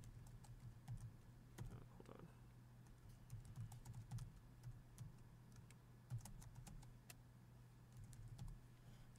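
Faint computer keyboard typing: scattered key clicks as a command is typed, over a steady low hum.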